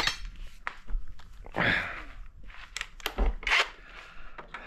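Footsteps scuffing across a dirt floor, with scattered knocks and clatter from handling a cordless impact wrench.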